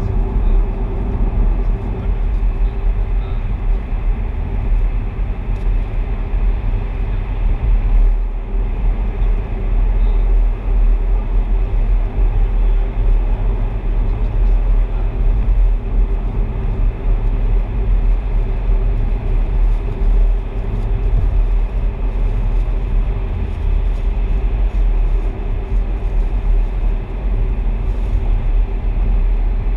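Car driving at a steady speed through a road tunnel: continuous low engine and tyre rumble with a steady drone, heard from inside the car.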